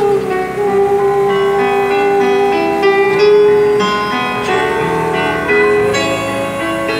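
A woman singing into a microphone, amplified, over keyboard accompaniment, with a long held note for the first few seconds.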